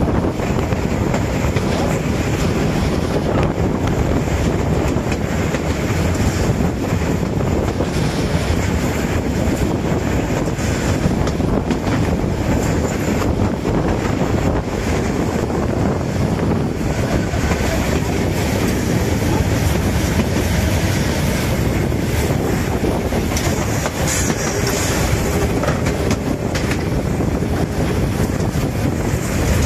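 Metre-gauge steam locomotive 99 7240-7 running along the line, heard up close at its front end: a steady, unbroken noise of wheels on rails and running gear.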